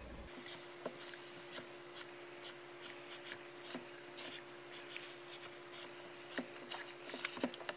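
Hands rubbing and pressing a towel on an ironing board, with faint rustling and scattered light taps, a few sharper near the end, over a steady faint hum.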